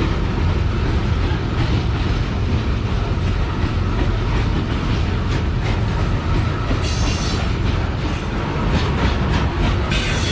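Loaded coal freight train rolling past close by: a steady heavy rumble with the clickety-clack of wheels over rail joints. Brief high-pitched screeches come in about seven seconds in and again near the end.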